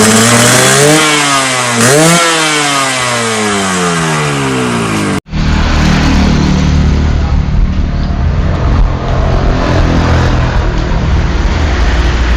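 Yamaha RX-King two-stroke single-cylinder motorcycle engine revving through its exhaust: two quick throttle blips about one and two seconds in, then the revs fall away. After a cut about five seconds in it runs steadily at low revs with a rough, raspy exhaust note.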